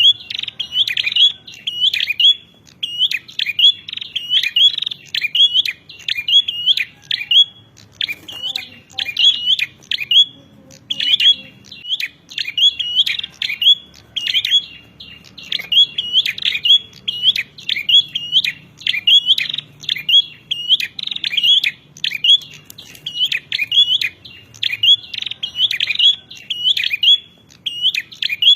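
Prenjak (bar-winged prinia) giving its fighting call: fast, loud chirping phrases repeated almost without a break, pausing briefly about eight and twelve seconds in.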